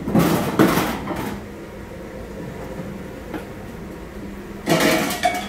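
Kitchen clatter: a cluster of knocks and handling noise for about the first second, then another short burst near the end, over a low steady background hum.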